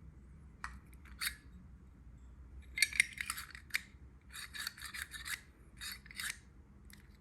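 Small metal parts of a Zippo spare fuel canister being handled and fitted together: scraping and rubbing in several short clusters, with light clinks.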